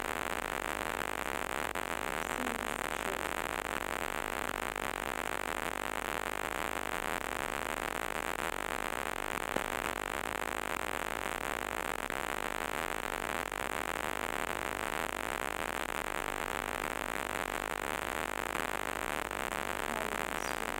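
Steady static hiss from a noisy recording, with no clear events; a faint click about nine and a half seconds in.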